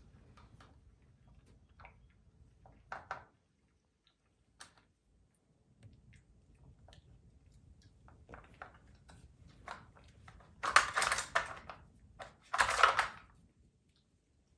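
A puppy nosing and pushing the plastic covers and sliders of a Dog Brick treat-puzzle toy on a tile floor and eating the kibble from it: scattered light clicks and taps, then two louder, harsher bursts of about a second each in the last few seconds.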